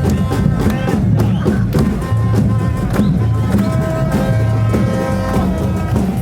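Carnival comparsa drumming, with many drum strokes close together, and a crowd singing along over it.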